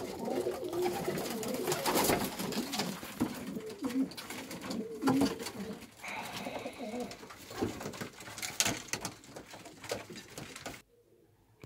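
Racing pigeons cooing in a small wooden loft: many short, low calls overlapping, with scattered clicks and knocks. The sound cuts off suddenly near the end.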